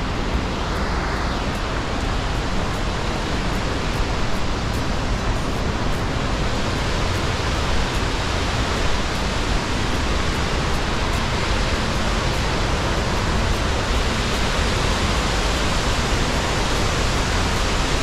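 Carlon Falls, a waterfall on the South Fork of the Tuolumne River running heavy with water, pouring close by: a loud, steady rush of falling water.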